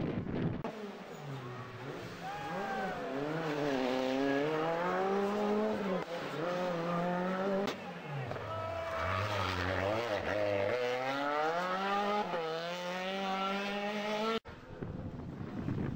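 Rally car engine revving hard through a corner. Its pitch repeatedly rises with each gear and drops, falls as it brakes, then climbs again as it accelerates away. The sound cuts off abruptly near the end.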